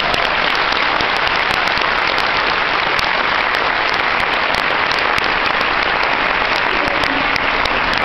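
Audience applauding steadily, a dense wash of many hands clapping.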